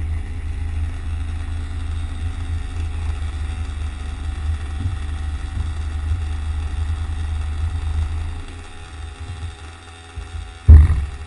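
Low, steady vehicle rumble that fades about eight seconds in, followed by a single loud thump near the end.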